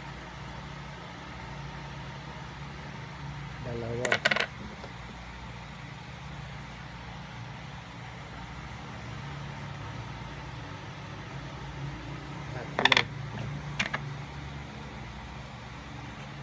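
20-peso bimetallic coins clinking as they are set down on a wooden table: a quick clink about four seconds in, then two more about a second apart later on.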